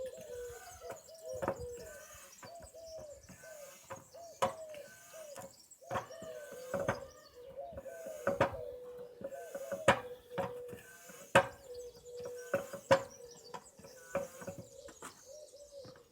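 Dunlop trolley foot pump being worked stroke after stroke, a sharp knock at each stroke roughly every one and a half seconds, topping a tyre up toward 2.4 bar.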